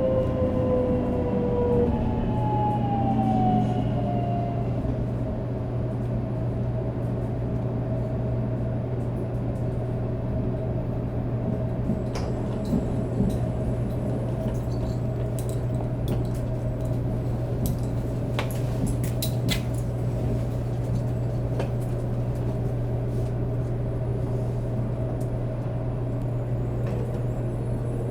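Shinkansen 500 series running sound heard inside the car. Its Toshiba GTO-VVVF inverter gives several tones that glide downward over the first few seconds as the train slows under braking. The tones fade into a steady low hum, with scattered light clicks and knocks.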